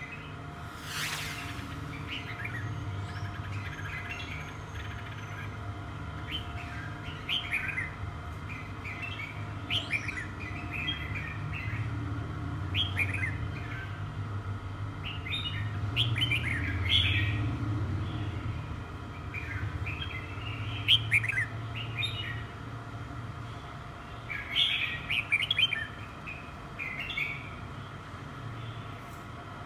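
Red-whiskered bulbul chirping in short, scattered bursts over a steady low hum, with a brief whoosh about a second in.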